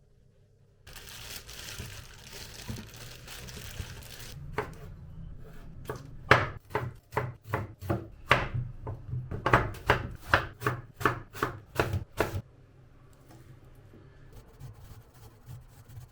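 Knife chopping on a cutting board: a run of about twenty sharp, even strikes, roughly three a second, after a few seconds of softer steady rustling.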